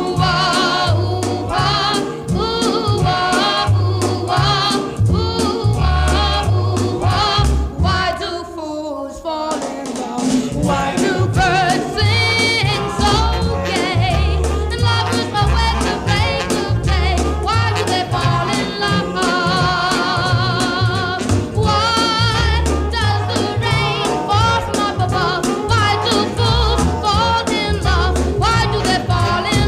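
Background music with singing over a steady bass beat.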